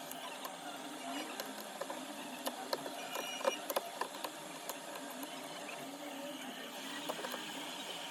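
Small, sharp clicks and taps of hand tools working on a smartphone, scattered irregularly over a steady hiss.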